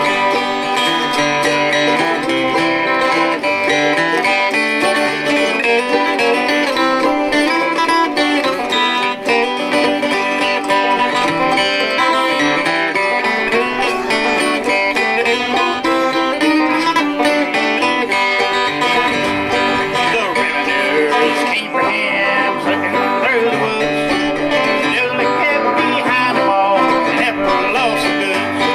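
Bluegrass band playing an instrumental break on banjo, mandolin and acoustic guitar, without singing.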